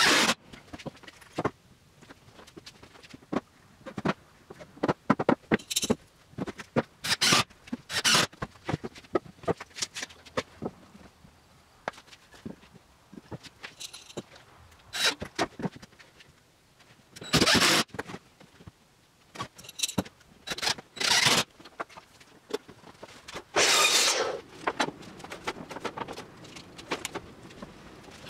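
Scattered clicks, knocks and clatter of hand tools and wooden cabinet parts being handled and set down, with a few louder noisy bursts lasting up to about a second.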